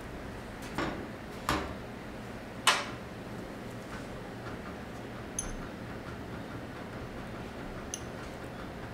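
Cooking utensils and dishes clattering: three sharp knocks in the first three seconds, the last the loudest, then two light clinks with a brief high ring, over a steady hiss.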